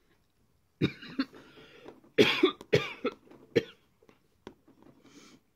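A person coughing, about five coughs between about one and four seconds in.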